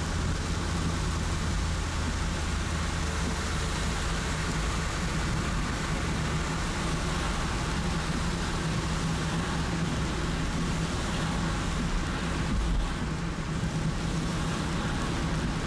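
A car driving through heavy rain: steady rain noise and road and tyre hiss over the vehicle's low, even hum, with a brief low thump about twelve and a half seconds in.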